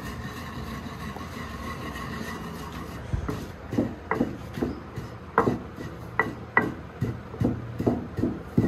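Long wooden pestle pounding whole ajwain, mustard seed and fennel in a heavy mortar (kunda) to crush them coarsely. From about three seconds in come regular dull thuds, roughly two to three a second, over a steady low background hum.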